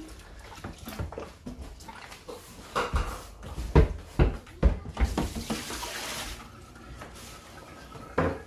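Vegetables and a plastic bowl being handled at a kitchen sink: a run of knocks, clatters and rustles, the loudest about four to five seconds in, followed by a tap running briefly.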